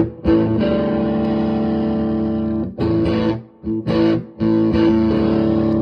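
Electric guitar with a P90 pickup played through a DIY fuzz pedal with its bass boost and mid boost both switched on and the fuzz at about halfway, into a Fender Super Champ amp. Fuzzy distorted chords: a long held chord, a shorter one, two quick stabs, then another long held chord.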